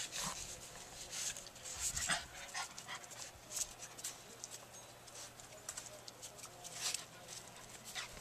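A three-legged dog shifting about on tiled steps: scattered soft scuffs and light clicks, with faint dog sounds.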